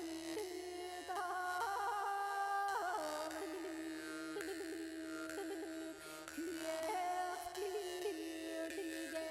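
Background music: a melody of held notes and gliding pitches over a steady low drone.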